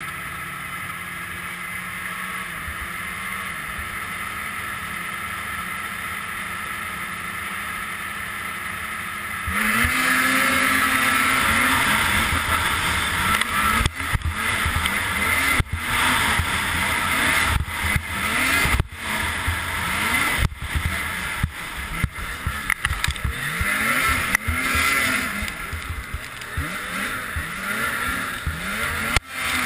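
Snowmobile engines idling steadily, then about nine and a half seconds in the racing sled's engine revs hard as it launches. Its pitch then rises and falls again and again as the throttle is worked on the snowcross track, heard close up from a camera on the sled, with a few brief cut-outs.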